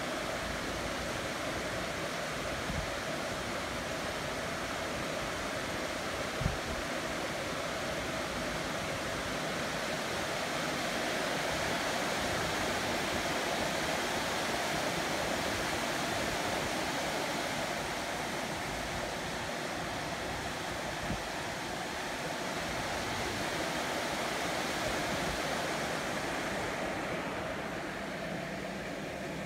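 Heavy rain pouring steadily over a city, a dense, even hiss that swells and eases gently; the hiss thins slightly near the end.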